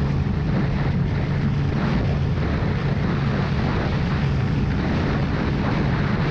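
Sport motorcycle's engine running steadily at cruising speed, holding an even pitch, mixed with wind rushing over the rider's camera.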